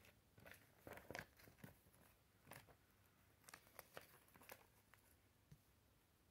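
Faint, scattered rustles and flicks of paper as the pages of a Lego instruction booklet are turned, against near silence.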